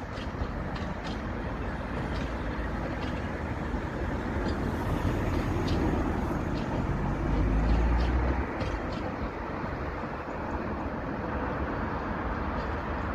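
South Western Railway Class 701 electric multiple unit running away along the track, a steady rumble of wheels on rail with a series of sharp clicks. A deeper rumble swells about two thirds of the way through.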